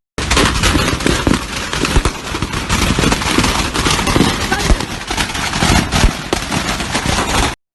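Stored fireworks going off in a burning factory: a rapid, continuous crackle of pops and bangs like gunfire, with a few louder blasts among them.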